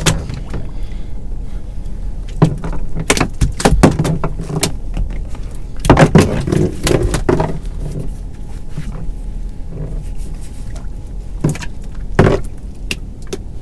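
Scattered knocks and thumps in a small boat's hull as a freshly landed conger eel is handled on the deck, over a steady low rumble; the knocks come thickest about halfway through.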